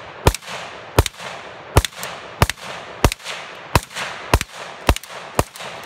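9mm pistol shots from a homemade Glock 19 with a wooden frame, fired in steady succession: about nine shots, roughly one every two-thirds of a second, each trailing off in a brief echo.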